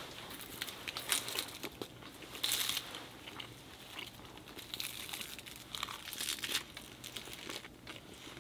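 Close rustling and crinkling of a hand-held wrap of napa cabbage and seaweed being filled with gwamegi and folded, with scattered small clicks.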